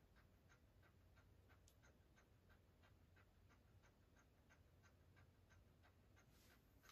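Near silence, with faint, even ticking about three times a second.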